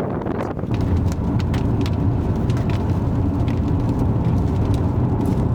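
Car cabin noise while driving in strong rear-flank downdraft wind: a steady low rumble of wind and road noise that grows louder about a second in, with scattered sharp ticks against the car.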